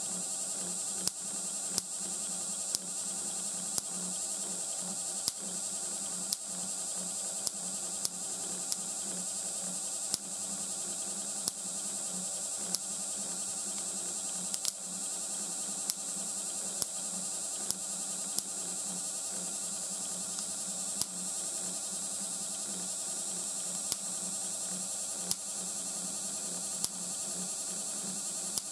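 Small kit Van de Graaff generator's motor and belt running with a steady electric buzz, while sparks of about 2 cm jump from its metal-bowl dome to a hand in sharp snaps, one every second or so at uneven intervals.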